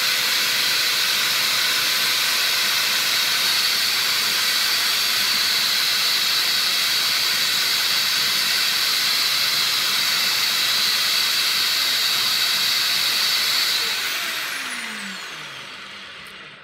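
Corded electric drill running at steady speed, its chuck spinning a sanding disc, with a small piece of wood held against the disc. About 14 seconds in the drill is switched off and winds down, falling in pitch and fading.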